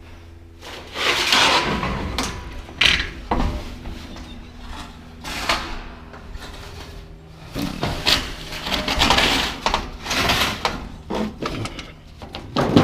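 Scrap being folded in half by hand: a series of irregular scraping, crumpling and rattling noises as the pieces are bent.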